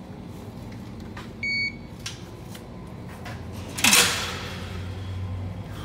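An access-control card reader gives one short electronic beep, and a couple of seconds later the steel mesh security gate clanks loudly as it opens and shuts, with a few lighter latch clicks before it, over a low steady hum.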